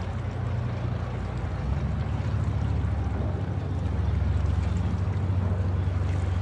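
Dredging vessel with a deck-mounted excavator, its engines running with a steady low hum over a broad background hiss.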